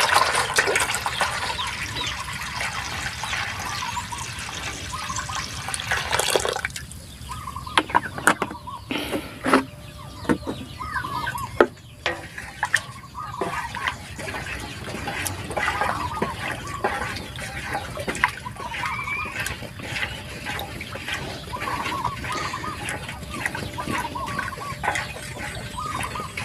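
Water pouring from a plastic bottle into a metal bowl of brown-sugar solution, splashing for about six seconds and then stopping. After that a wooden stick stirs the liquid, sloshing and clicking against the bowl. Chickens cluck in the background.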